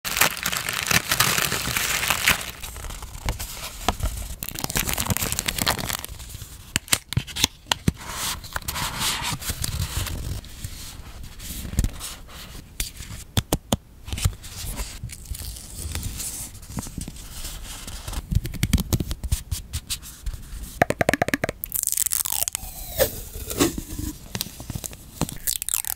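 Close-up paper handling: tissue-paper wrapping crinkling and tearing as a package is opened, then stiff playing cards tapping and sliding against one another, with many sharp clicks and rustles.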